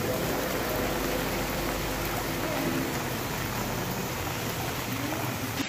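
Steady rain falling onto a waterlogged road, an even hiss with no distinct splashes or knocks.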